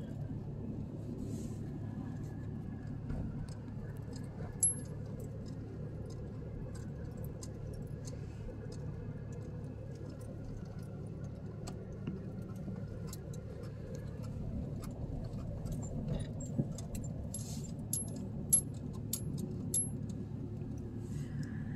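Cabin noise inside a slowly moving pickup truck: a steady low hum from the engine and road. Scattered light clicks sound over it, one about five seconds in and a cluster near the end.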